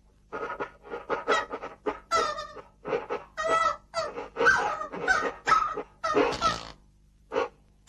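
A cartoon character's voice: a rapid run of short, bark-like yelps and grunts, about three a second, that stops shortly before the end.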